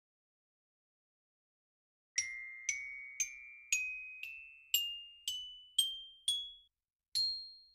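Logo jingle of bell-like mallet notes, glockenspiel-like. Starting about two seconds in, nine struck notes ring out about two a second, each a step higher, and after a short pause a final, higher note ends it.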